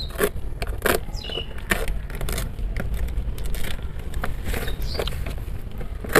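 Fabric grow bag being cut and pulled open by hand: scattered short rustles and snips of the fabric, over a steady low rumble.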